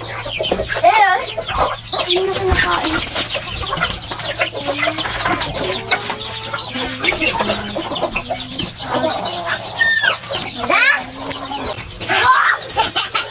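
A flock of free-range chickens (hens, roosters and chicks) clucking and calling continuously in many short calls.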